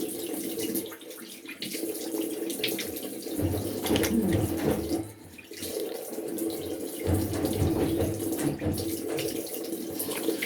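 Tap running into a sink while hands splash water onto the face to rinse it, with louder, uneven splashing about four seconds in and again around seven to nine seconds.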